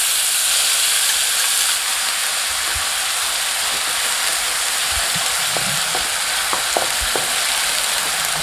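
Chopped onion sizzling steadily in hot oil with whole spices in a kadai. From about three seconds in, a spatula stirring it gives a few scattered scrapes and knocks against the pan.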